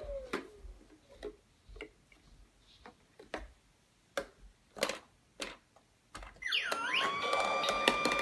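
Pink elephant ball-blower toy: its motor whine falls away at the start, then hard plastic clicks and knocks as a plastic ball and small hands work the toy, and about six and a half seconds in the battery-powered fan motor starts again with a short swooping sound effect and a rising whine that settles into a steady hum.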